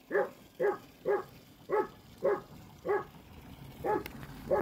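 A dog barking repeatedly: short, even barks, about two a second, with a brief gap near the end.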